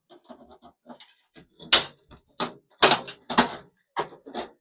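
Sharp clicks and knocks, about half a dozen with fainter ticks between, as parts of a microwave oven are worked loose and handled during dismantling.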